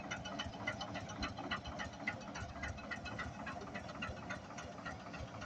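Single-cylinder Blackstone diesel engine of a diesel road roller running, with a steady, even beat of knocks.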